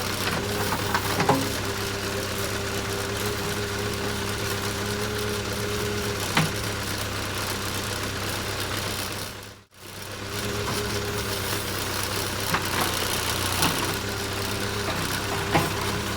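Backhoe loader's diesel engine running at a steady speed, with a few short clunks now and then. The sound drops out for a moment about ten seconds in, then the engine carries on.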